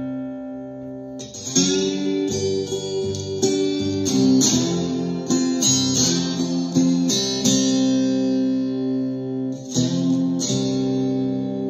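Ovation Koa acoustic-electric guitar in open C tuning (C-G-C-G-C-E) played with a ceramic slide: chords plucked and left ringing, a new one struck every second or so after a softer first second.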